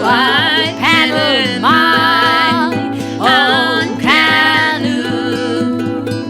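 Music: plucked strings under a melody line that slides up into held, wavering notes again and again, with no sung words.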